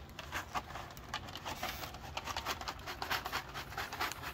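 Footsteps crunching through dry leaves and pine needles: a run of quick, irregular crunches.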